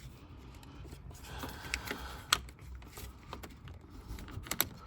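Scattered small plastic clicks and taps as a wiring connector's rear cover is handled and pressed back into place, with a few sharper clicks near the end.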